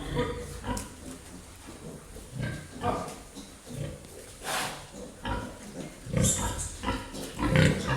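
Hampshire pigs grunting and squealing in short, irregular bursts, louder from about six seconds in.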